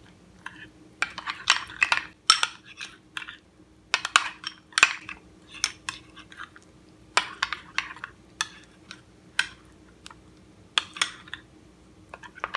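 A spoon scraping and clinking against a glass bowl while stirring a thick sour-cream sauce, in irregular short strokes.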